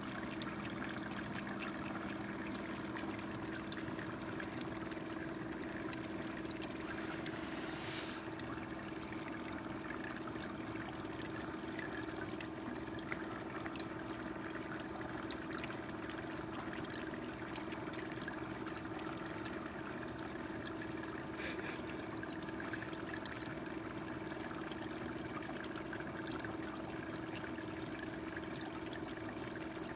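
Petmate Infinity Elite pet water fountain running: water trickling steadily over the bowl, with a steady low electric pump hum underneath.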